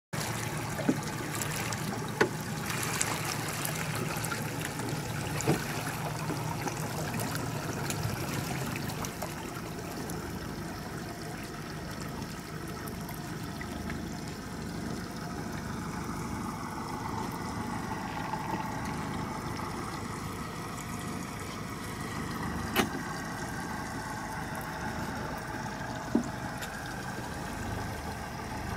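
A boat's outboard motor running steadily at trolling speed, with water washing along the hull. A few sharp knocks are heard, the loudest about 23 and 26 seconds in.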